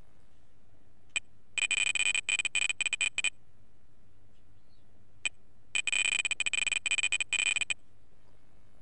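Electronic ring or alert tone: two bursts of rapid, high-pitched beeping about four seconds apart, each led by a single short beep.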